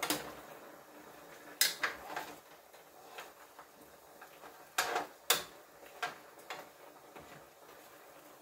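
Spoon knocking and scraping against a cooking pot as spareribs in sauce are stirred: a string of clinks and taps, the sharpest about one and a half and five seconds in.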